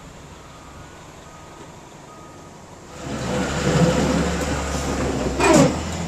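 Faint street background, then about halfway a heavy vehicle's low, steady engine rumble comes in with traffic noise. Near the end a brief, loud sound falls in pitch.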